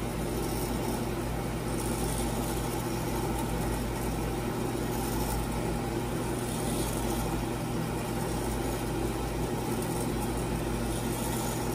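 Milling machine table power feed running, a steady motor and gear hum as it drives the table along its travel toward the power-feed stop.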